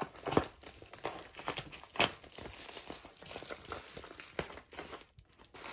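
Plastic poly mailer crinkling and crackling as it is handled and slit open with a knife, with two sharper crackles about half a second and two seconds in.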